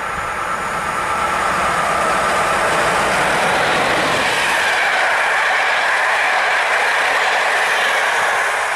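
PKP Intercity EU07 electric locomotive and its passenger coaches passing: a loud, steady rush of wheels on rail that builds over the first couple of seconds and eases slightly near the end.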